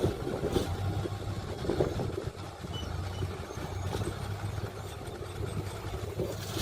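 Heavy earthmoving machinery's engine running steadily, with a few knocks and clanks.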